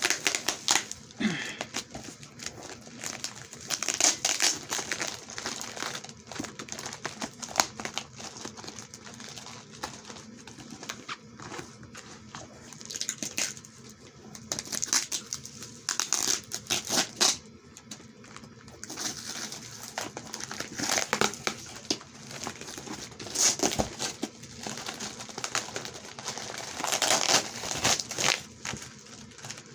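Packaging being crinkled and torn open by hand, in irregular bursts of crackling with sharp clicks, as a package is worked open.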